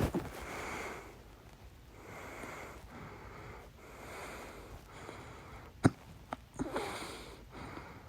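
A person's hiccups: sharp, sudden hics, the loudest about six seconds in with a smaller one right after it, and audible breathing in between.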